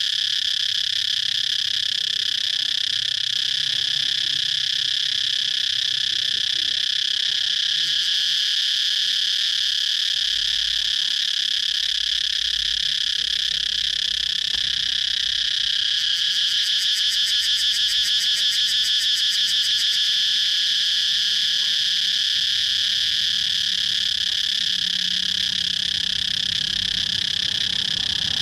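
Cicadas singing: a steady, unbroken high buzz, with a faster pulsing call swelling over it for a few seconds past the middle.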